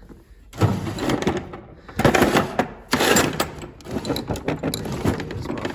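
Rummaging through tools while searching for a vernier caliper: a loud, irregular run of clattering, knocks and scraping of tools and drawers being moved.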